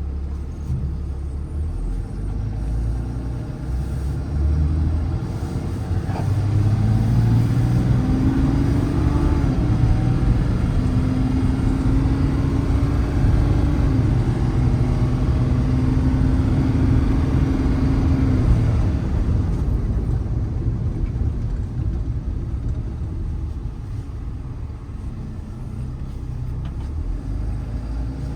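Ram 5500's 6.7 L Cummins inline-six turbodiesel pulling under acceleration. Its drone grows louder about six seconds in and steps down in pitch twice as the automatic transmission shifts up. It eases off to a lower rumble about two-thirds of the way through.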